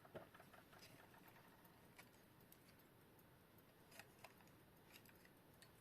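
Near silence: room tone with a few faint, irregularly spaced small clicks.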